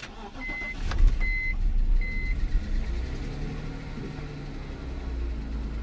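BMW car engine being started: it cranks and catches about a second in, then settles to a steady idle. A dashboard chime beeps three times over the first couple of seconds.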